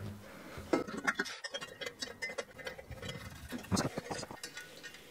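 Light, irregular metallic clicks and clinks of exhaust header bolts and beveled washers being handled and started by hand against the header flange, with two slightly louder knocks, one a little under a second in and one near four seconds.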